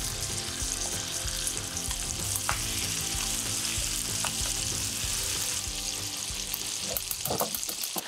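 Marinated chicken thighs sizzling in hot oil in a frying pan, skin side down, with a steady hiss. A few light clicks come near the end.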